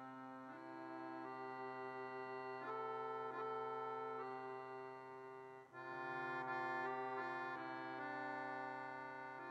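Chromatic button accordion playing held notes and chords in a slow melody, with a brief break a little past halfway before it comes back louder.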